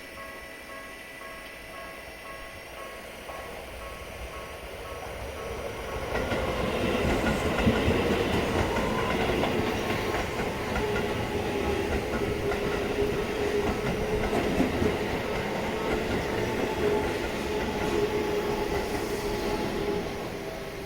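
A Tobu Skytree Line train passing on the track. Its rumble builds from about four seconds in and is loudest from about six seconds, with a steady hum running through it, then eases off near the end.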